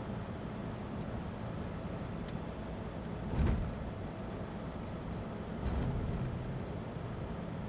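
In-cabin noise of a 2009 Land Rover Defender 90 cruising on a motorway: the steady low rumble of its Ford Puma diesel engine and tyres. Two brief thumps come through, about three and a half seconds in and again near six seconds.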